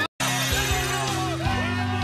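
Music: one song cuts off abruptly, a split second of silence, then the next song starts with steady bass notes under a melody.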